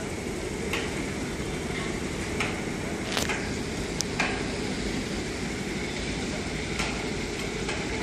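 A steady low rumble with about seven short, sharp knocks scattered irregularly over it.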